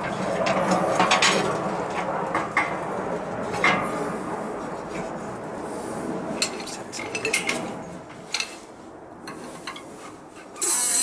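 Steel crankshaft half and brake disc being handled on the bed of a hydraulic press: metal parts scraping and clinking against each other, with a run of small knocks, quieter in the second half. A sudden loud rushing noise starts just before the end.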